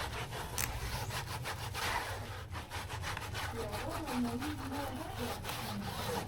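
Rapid, repeated scraping strokes, with quiet voices coming in about halfway through.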